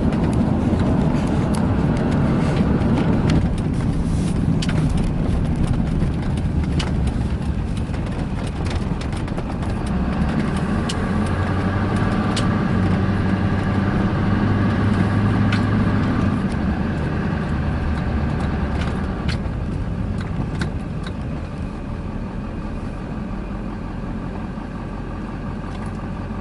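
Chevy 2500HD pickup driving at highway speed, heard from inside the cab: a steady drone of engine and tyre noise with a few light rattles. It eases somewhat in the last third. There is no wheel rumble, with the front wheel hub bearing newly replaced.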